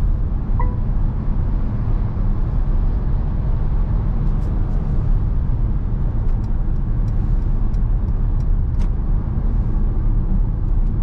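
Mercedes-Benz V 300d van on the move: a steady low drone of its four-cylinder diesel and road noise. A short electronic beep sounds under a second in, and a few light clicks come and go in the middle.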